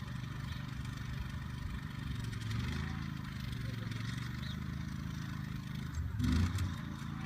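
Sea Legs amphibious boat's engine running steadily as the boat drives on its wheels onto a trailer. The sound swells slightly about two seconds in, and a louder clunk and rattle comes about six seconds in.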